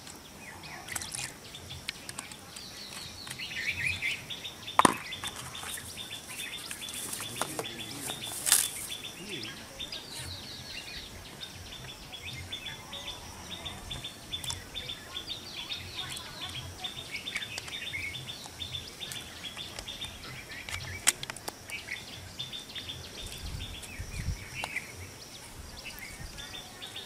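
Small birds chirping in short, rapidly repeated notes, with a few sharp clicks standing out above them.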